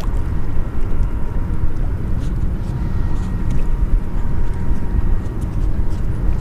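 Wind buffeting the microphone on an open boat: a steady, uneven low rumble, with a faint thin steady whine and a few scattered light ticks over it.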